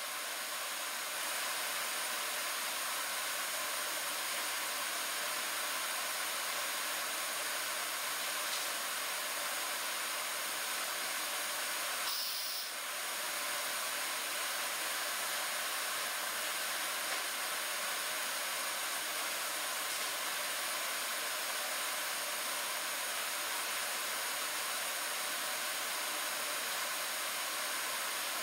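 Thermwood C70 five-axis CNC router running, a steady hiss and whir with a faint high whine, as its spindle head moves. The sound dips briefly about twelve seconds in.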